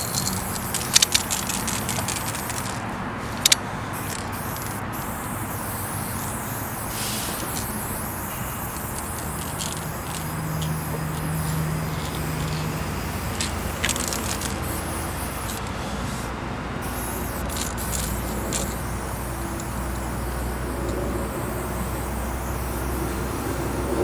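Aerosol spray-paint can (Molotow CoversAll light orange) hissing in long, steady sprays as a wall area is filled in, with a couple of sharp clicks near the start. A low traffic rumble comes in toward the end.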